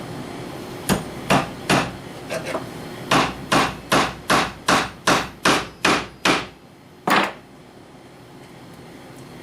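Hammer driving tacks through leather: three blows, a couple of light taps, then a steady run of about nine blows at roughly two and a half a second, and one last blow about seven seconds in.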